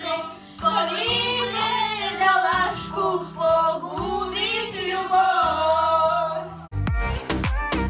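Girls singing karaoke through microphones over a backing track. Near the end the music switches abruptly to a loud electronic beat with heavy drum hits.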